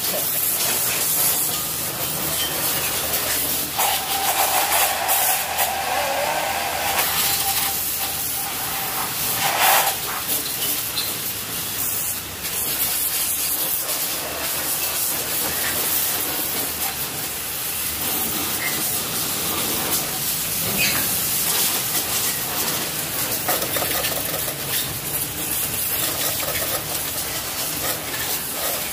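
Steady hissing spray, with a brief louder surge about ten seconds in.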